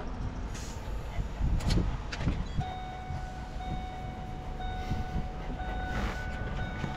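Low steady rumble of a truck's engine running, heard from inside the cab. About two and a half seconds in, a steady high-pitched tone comes in and holds.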